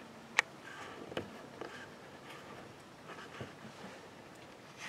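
A few faint, sharp clicks over a low, steady background.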